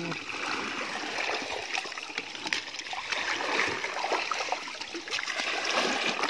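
Shallow muddy water sloshing and trickling, with small splashes and scattered light clicks.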